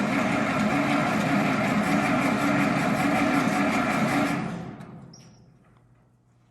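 Old Chrysler industrial gasoline engine turning over steadily for about four seconds, then winding down to a stop without staying running.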